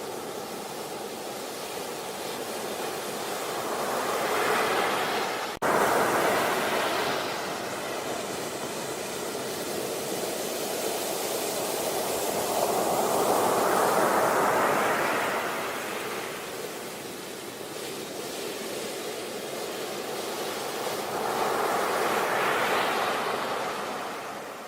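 Sea waves breaking and washing up a beach, rising and falling in three slow surges. There is a split-second break in the sound about five and a half seconds in.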